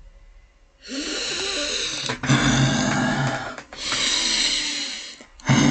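A man's heavy, deliberately forced breathing: about four long, loud, throaty breaths, starting about a second in, put on to show he is angry.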